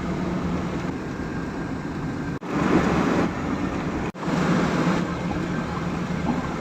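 Steady motor-vehicle noise: a low engine hum under road and traffic noise. It breaks off abruptly twice, about two and a half and four seconds in.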